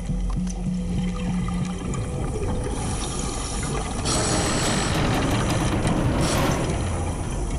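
Scuba diver's regulator underwater: a loud rush of exhaled bubbles begins about four seconds in and lasts a couple of seconds, over a steady underwater rumble.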